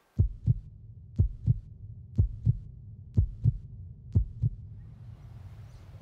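Heartbeat sound effect: five double thumps, lub-dub, about one a second, over a low rumble, stopping about four and a half seconds in.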